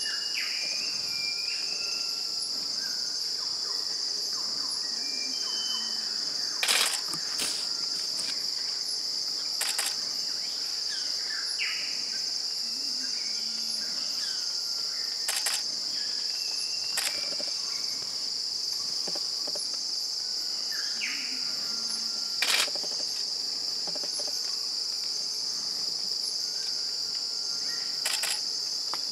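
Steady high-pitched drone of forest insects, broken by a handful of short sharp snaps, the loudest about a quarter and three quarters of the way in, with a few faint brief chirps.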